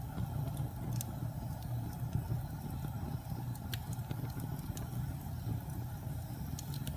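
Wood fire burning in a fireplace: a steady low rumble with a few sharp crackles and pops scattered through it.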